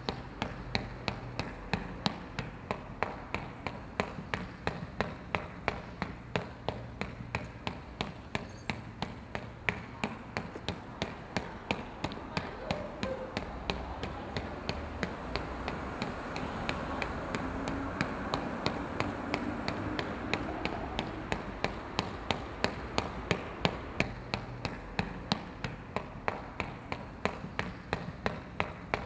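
Sharp, evenly spaced taps, about two and a half a second, run on without a break over a steady low hum.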